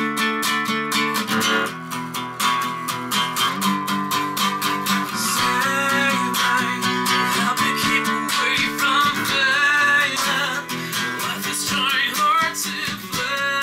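Acoustic guitar strummed steadily, with a man's voice singing along from about five seconds in.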